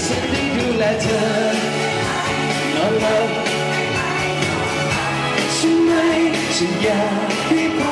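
A man singing a pop song into a handheld microphone over backing music, amplified through PA speakers.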